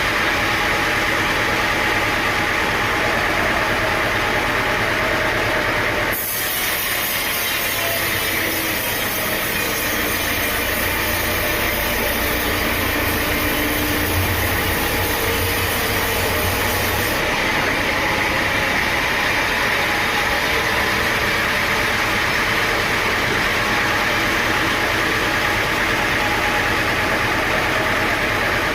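Sawmill machinery running: a steady, dense mechanical din. Its character shifts abruptly about six seconds in and again about seventeen seconds in.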